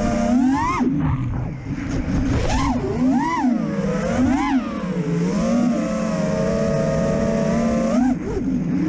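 FPV racing quadcopter's brushless motors (Stout v3 on 6S) and props whining, the pitch swooping up and dropping back with repeated throttle punches, with a steadier stretch near the middle before another quick rise near the end.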